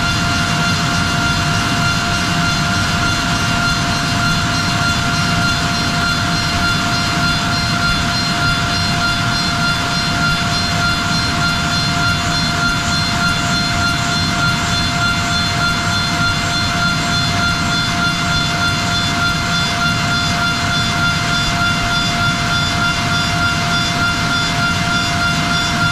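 Bacci T4MO CNC wood-machining centre running steadily inside its enclosure: a constant high whine over a steady low rumble, with no change in pitch or level.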